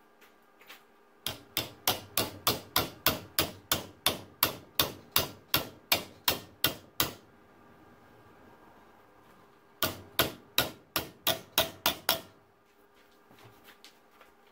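Hammer blows shaping sheet steel over a former clamped in a bench vise. A quick, even run of about twenty sharp strikes at roughly four a second, then after a pause of a couple of seconds a second run of about ten.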